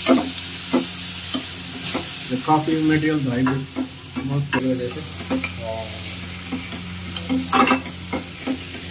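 Onion, tomato and spice masala for poha frying with a steady sizzle in a pan, while a steel spoon stirs it and clicks and scrapes against the pan about once a second, loudest near the end.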